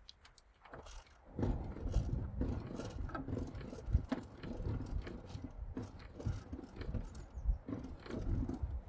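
Irregular mechanical clicks, rattles and dull knocks, as of parts being handled, starting about a second and a half in.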